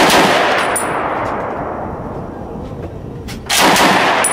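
Browning Automatic Rifle firing on slow automatic: a short burst just before the start rings out into a long echoing decay, and a second short burst comes about three and a half seconds in. A light metallic ding follows each burst.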